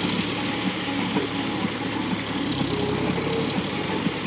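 Tractor engine running steadily as it powers a straw baler rolling paddy straw into bales, with a scatter of small mechanical knocks from the machinery.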